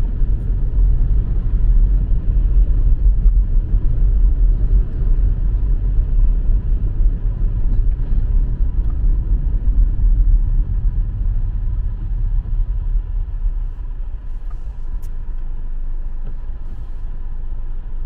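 A car driving, heard from inside the cabin: a steady low rumble of engine and road noise that eases a little about two-thirds of the way through.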